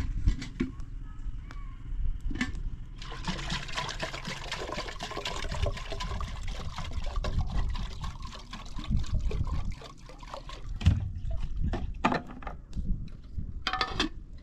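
Water running for several seconds, starting about three seconds in, with scattered knocks and handling sounds around it.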